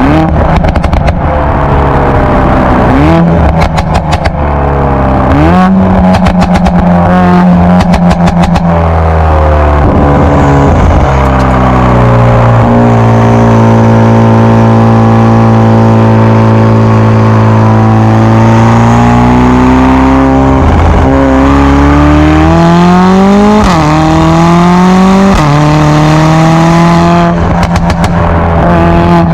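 Stage 2 tuned Mercedes-AMG A45 S's turbocharged 2.0-litre four-cylinder being revved through its exhaust, with quick rises and falls in pitch and rapid pops and crackles on the overrun in the first several seconds and again near the end. In the middle it holds higher revs for about ten seconds, the pitch sinking slowly and then climbing again.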